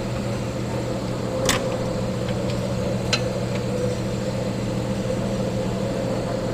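Steady mechanical hum with a few light clicks about one and a half and three seconds in.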